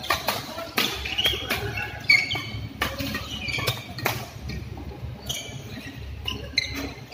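Badminton doubles rally: rackets striking the shuttlecock in a string of sharp smacks, with short high squeaks of players' shoes on the court mat.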